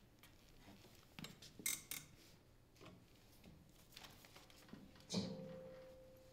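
Faint rustling of sheet-music paper and a few light clicks and knocks. About five seconds in, a single note is struck on an upright piano and rings, slowly fading.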